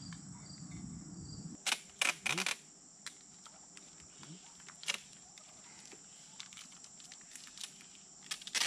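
Insects trilling steadily, with several sharp clicks and taps on top, a cluster about two seconds in and another near the end.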